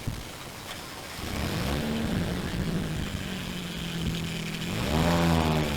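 Car engine accelerating: the engine note climbs about a second in, holds steady, then revs up again, louder, near the end.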